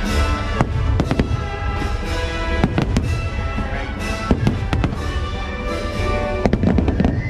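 Aerial firework shells bursting in a quick, irregular string of sharp bangs, over loud show music.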